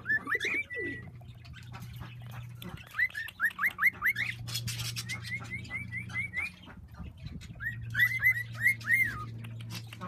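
Cockatiels calling: short rising whistled chirps repeated in quick runs of five or six notes, several runs in a row, over a faint low hum.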